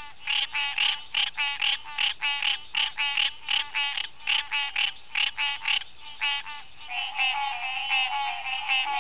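Frogs calling: a quick run of short, evenly repeated calls, several a second, over a steady high background hum of other calls. About seven seconds in, more voices join and the calling becomes a denser, overlapping chorus.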